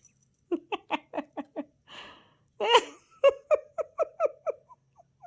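A woman laughing: two runs of short, rhythmic ha-ha bursts, about five a second, with a breath drawn in and a louder burst between them.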